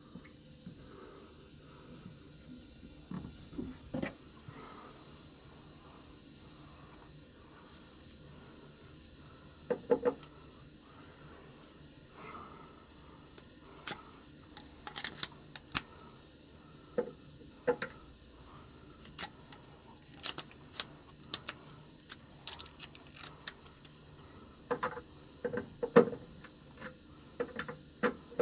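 Scattered clicks and knocks of hand work on the water heater, as tools and metal parts are handled, over a steady faint hiss; the hardest knock comes near the end.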